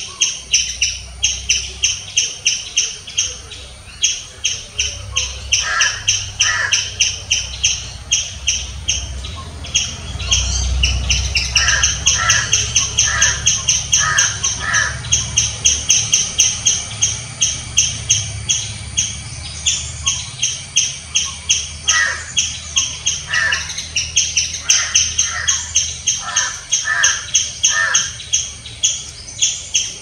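A striped palm squirrel giving its loud, rapid chirping alarm call, sharp chips repeated about four times a second without a break. Short runs of lower-pitched chirps come in now and then.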